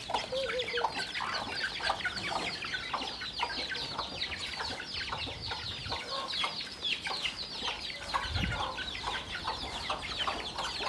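A flock of young chickens peeping constantly, a dense overlap of short, high, falling cheeps, with occasional clucks. A brief low rumble about eight and a half seconds in.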